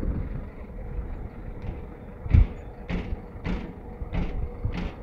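Footsteps in flip-flops on a truck's diamond-plate steel deck: a thump about halfway through, then steady steps about one every 0.6 s, over the low, steady rumble of the truck.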